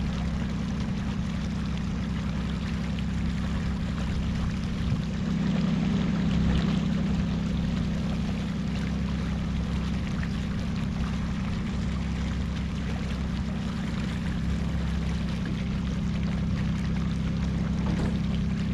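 40-horsepower outboard motor running steadily at low trolling speed, a constant low hum with water washing behind the boat.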